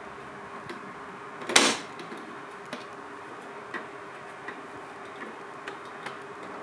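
The hinged plastic bonnet of a 1/10-scale RC Unimog truck model being opened by hand: one sharp snap about one and a half seconds in, then several small plastic clicks, over a steady faint hum.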